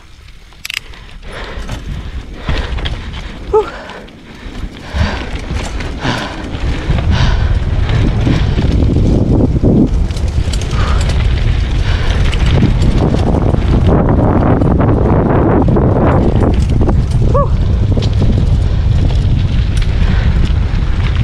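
Mountain bike rolling downhill over a dirt and gravel trail, with short knocks and rattles in the first few seconds. From about seven seconds in, a loud, steady wind rumble on the camera's microphone covers it as the bike picks up speed.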